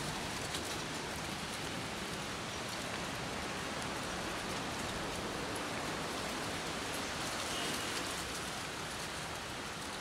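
Wind blowing steadily on the microphone: an even rushing noise.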